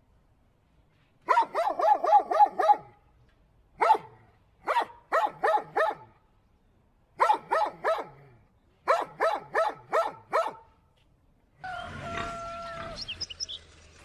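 Dog barking in quick bursts of several barks each, about four barks a second, with short pauses between the bursts. Near the end a different, noisier sound comes in, carrying a brief steady tone.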